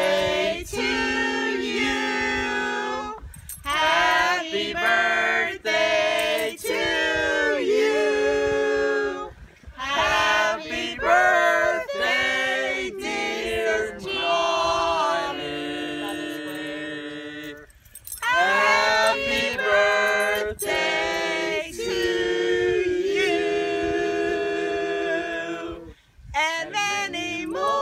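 A group of women, men and children singing a birthday song together, unaccompanied, in long held notes with brief pauses between phrases.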